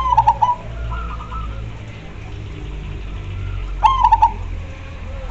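Zebra dove (perkutut) song: a quick run of staccato coos at the start and again about four seconds in, with fainter coos from other doves answering in between.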